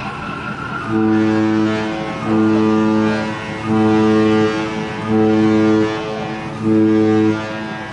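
A ship's horn sounds five short, deep blasts, each just under a second long, evenly spaced about one and a half seconds apart. Five short blasts is the collision-regulations signal of doubt or danger.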